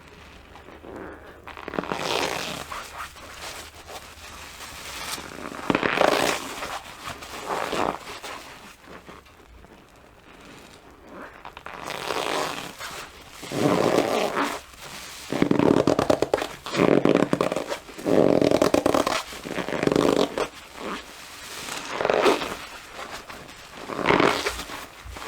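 A wet sponge squeezed and worked by hand, squelching and squeaking. The squeezes come a few seconds apart at first, then about one every second or two in the second half.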